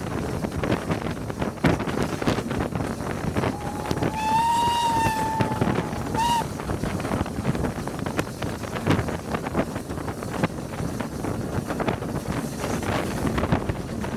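Steam locomotive whistle, from the BR Standard Class 9F hauling the train: one long blast of about two seconds, then a short toot. Under it, the steady rumble and clatter of the train running, with wind on the microphone.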